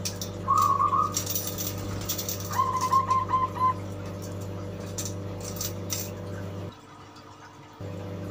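Zebra dove (perkutut) singing twice: a short cooing note about half a second in, then a quick run of repeated clipped notes about two and a half seconds in. A steady low hum runs underneath and drops out for about a second near the end.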